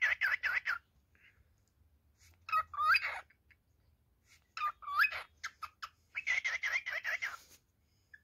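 Male cockatiel singing: a fast run of repeated chirps, about eight a second, at the start and again about six seconds in, with two rising whistled calls mixed with scratchy notes between them.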